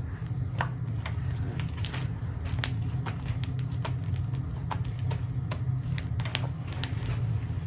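Fluffy glue slime, activated with laundry detergent and thickened with cornstarch, being spread and squished by hand, making irregular sticky clicks and small pops. A steady low hum runs underneath.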